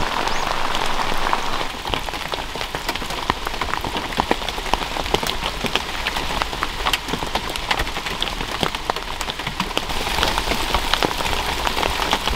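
Steady rain falling, with many separate raindrop hits heard through the rush.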